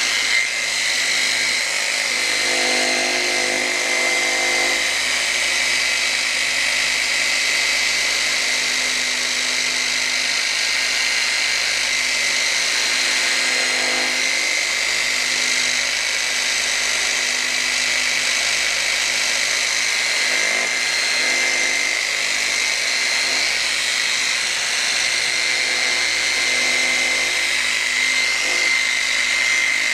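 Electric polisher with a foam pad running steadily with a high whine, pressed on painted motorcycle bodywork. It is working medium compound to polish out swirl marks.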